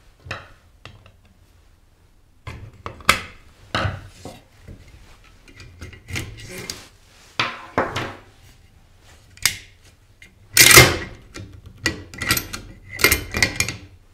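Metal clicks, clacks and scrapes of an AK-pattern rifle being field-stripped on a wooden table: the top cover lifted, the recoil spring pulled out and laid down, and the bolt carrier slid back and out. The loudest clatter comes about two-thirds of the way through, followed by a quick run of clicks.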